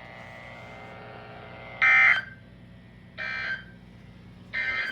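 Three short bursts of the Emergency Alert System's digital end-of-message data signal on NOAA Weather Radio, each a brief buzzing two-tone burst, about a second and a half apart, the first the loudest; they mark the end of the warning message. Faint radio hiss lies underneath.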